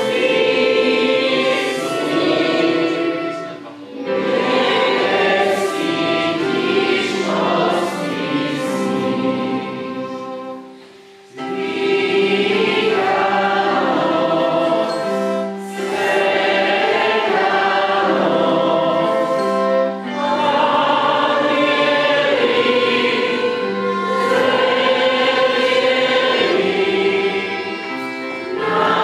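A group of voices singing a Christmas carol together, phrase by phrase, with a short pause about eleven seconds in.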